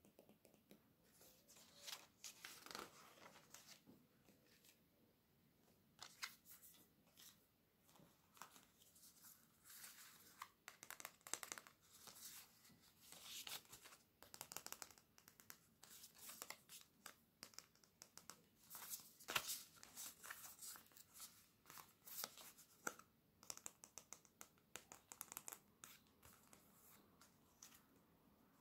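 Glossy catalogue paper and a small stack of glossy cards handled by hand: crinkling and rustling with many irregular sharp crackles and taps, the busiest and loudest stretch in the second half.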